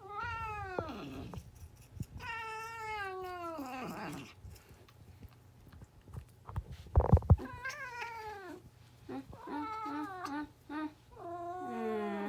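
Cat yowling during a tooth brushing: about five long drawn-out meows, each falling in pitch, with a heavy thump about seven seconds in.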